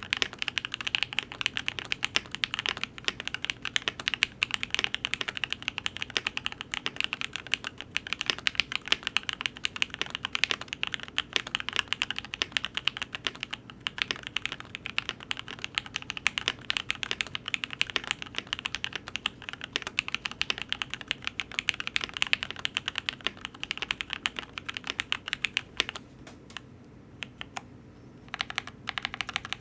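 Fast, continuous typing on a Cannon Keys Devastating TKL mechanical keyboard with lubed and filmed Lavender switches, an FR4 plate and GMK keycaps. Dense, even key clicks that thin to a few scattered keystrokes for about two seconds near the end.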